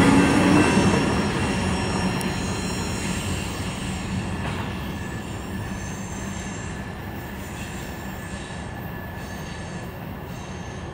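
The last cars of a CSX mixed manifest freight train rolling away: steel wheels rumbling and clattering on the rails, fading steadily, with thin high squeals from wheel flanges grinding on the curve.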